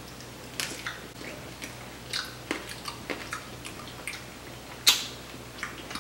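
Two people chewing mango wrapped in fruit roll-up, mouths open, with loud smacking: irregular wet clicks and smacks, the loudest about five seconds in.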